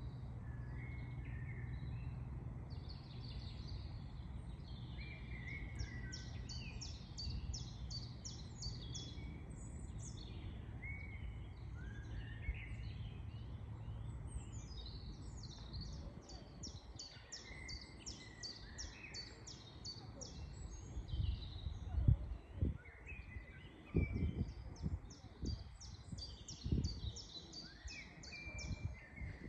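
Wild birds singing: bursts of rapid high trills of short repeated notes, three runs of them, with lower chirps scattered between. A steady low rumble sits under the first half, and several low thuds come in the second half.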